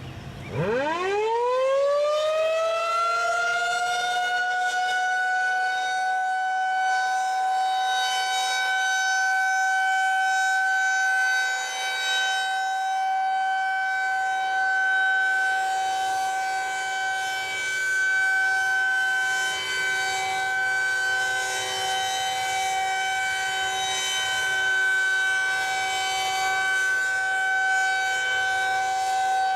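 Federal Signal 2001-SRN electromechanical outdoor warning siren winding up from a stop, its pitch climbing steeply for about two seconds, then holding one steady tone: the steady alert signal of a monthly test.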